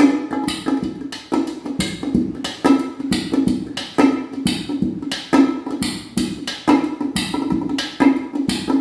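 Instrumental music: a quick, regular drum rhythm of sharp strikes over a sustained low note, with no singing.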